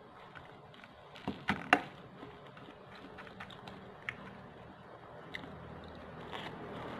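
Wooden chopsticks clicking and tapping against a ceramic bowl while picking up food, with a quick cluster of three sharp clicks about a second and a half in and scattered lighter taps after.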